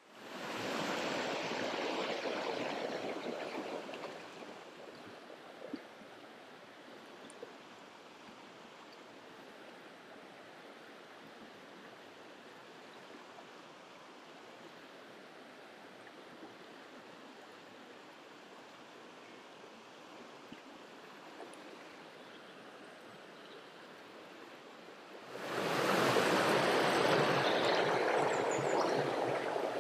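Shallow, rocky moorland river running over stones: a loud rush of broken water for the first few seconds, a softer steady flow through the middle, and a loud rush again near the end.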